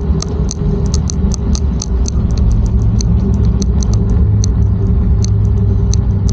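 Electric motorcycle riding slowly, with wind buffeting the bike-mounted microphone in a steady low rumble, a faint steady whine, and quick sharp ticks several times a second.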